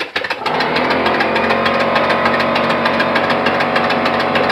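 A homemade single-acting air engine running on compressed air at about 30 psi, its strokes making a fast, even knocking. It catches with a few uneven strokes, then settles into steady running about half a second in.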